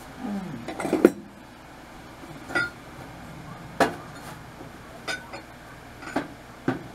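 Scattered knocks and clinks of dishes and utensils being handled on a kitchen counter, about six separate hits a second or so apart, a few with a short glassy ring.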